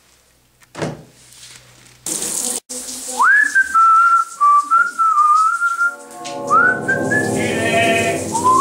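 A knock about a second in, then a whistled tune with quick upward slides into held notes. About six seconds in, a deep, sustained droning accompaniment joins under the whistling.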